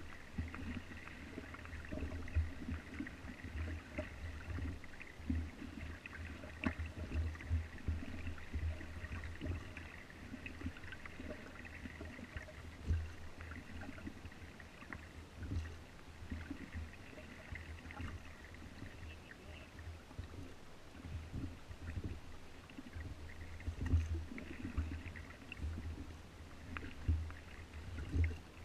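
Inflatable dinghy moving slowly across calm water: low splashing and gurgling along the hull with irregular knocks and bumps, and no engine running.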